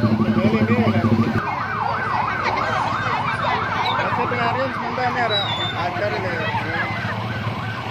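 Electronic siren yelping, its pitch sweeping rapidly up and down several times a second, over the chatter and calls of a walking crowd. A steady low drone cuts off about a second and a half in.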